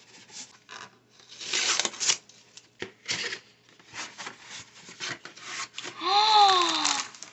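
Cardboard meal-kit box being pried open by hand: the paperboard flap scraping and rubbing in irregular bursts as it is pulled back. Near the end a drawn-out voice sound rises and falls in pitch over the rustling.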